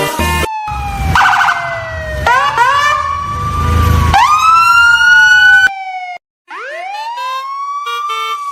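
Siren wails: pitched tones gliding slowly down and sweeping back up, several overlapping, over a low rumble that stops about six seconds in. After a brief silence, a siren winds up again and holds near the end.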